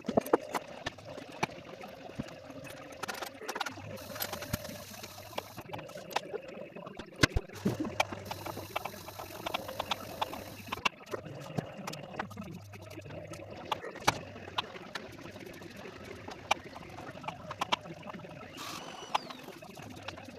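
Jigsaw puzzle pieces being handled and set down, sped up in time-lapse: frequent, irregular sharp clicks and taps over a steady hum.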